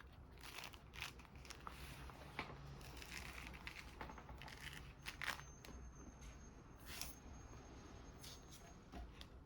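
Mandarin orange (mikan) peel being torn off by hand: soft, irregular tearing and crackling of the rind.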